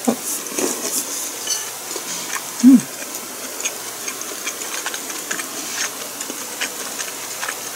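Eating close to the microphone: soft chewing and mouth sounds with light clicks of chopsticks. A brief low hum comes about two and a half seconds in.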